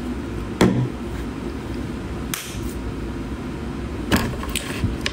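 Steady low background rumble with a few short knocks and clicks scattered through it, like a phone being handled.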